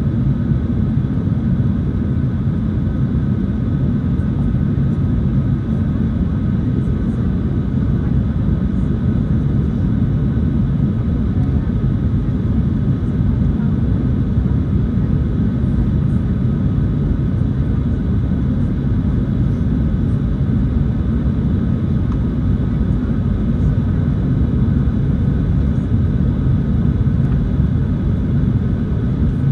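Steady cabin noise inside a Boeing 737-800 on descent: a deep, even rumble of airflow and its CFM56-7B turbofan engines, heard from a window seat by the wing, with a few faint steady tones above it.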